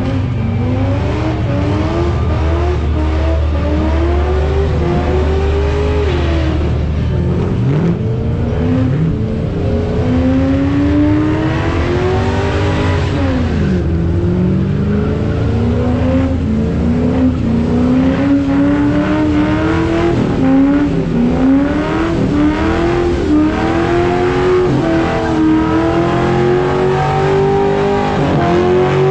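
A ute's engine revving hard through a burnout, its pitch climbing and then dropping sharply again and again as the throttle is worked, over the hiss of spinning rear tyres.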